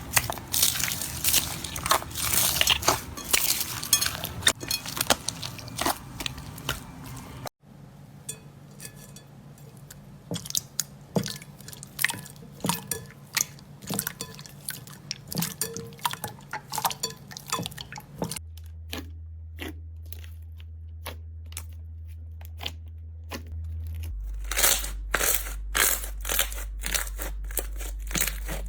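Slime being squeezed and pressed by hand, making dense crunchy clicks and crackles. The sound changes abruptly a few times, as one clip gives way to the next.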